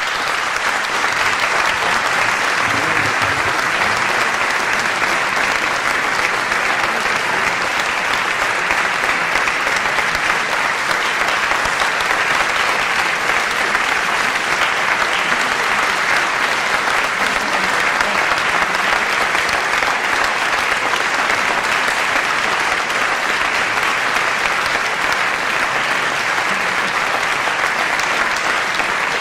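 Large concert audience applauding, a dense, steady ovation that keeps on without a break, following the end of the music.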